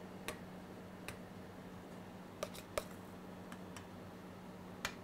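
A metal spoon clicking and clinking lightly against a stainless steel bowl and ring molds while potato purée is scooped and dropped into the molds. There are about eight short, irregular clicks, with a steady low hum underneath.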